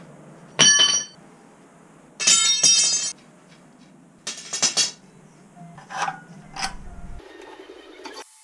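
Lengths of steel bar and threaded rod laid down on a concrete floor one after another, each landing with a clank and a ringing metallic tone. There are about five clanks over several seconds, the loudest near the start.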